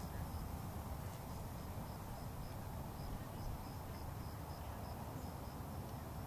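High insect chirping in a steady, even pulse about three to four times a second, over a low rumble of wind on the microphone.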